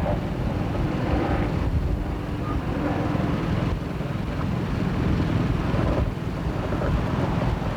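Helicopter engine and rotor noise, a steady low rumble with a fast flutter, heard from aboard the aircraft.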